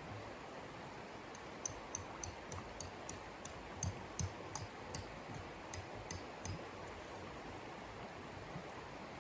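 Steady blizzard wind noise. Between about one and a half and six and a half seconds in, a regular run of about fifteen light clicks or taps comes through it, roughly three a second.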